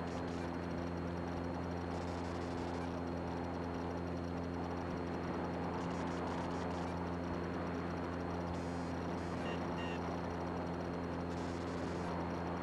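Cessna 182 Skylane's six-cylinder piston engine and propeller droning steadily at climb power after a go-around.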